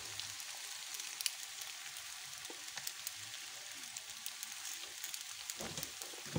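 Quiet sizzling of macaroni with chicken and vegetables frying in an aluminium pan, with scattered small crackles.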